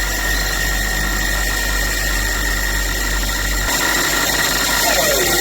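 DIY CNC lathe running, its spindle drive giving a steady whine at one pitch. A low hum under it stops about two-thirds of the way through. Near the end a second, lower tone slides down in pitch.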